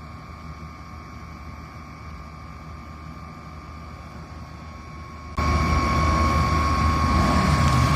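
Royal Enfield Classic 350's single-cylinder engine running steadily through its stock silencer, fairly faint at first, then suddenly much louder about five seconds in.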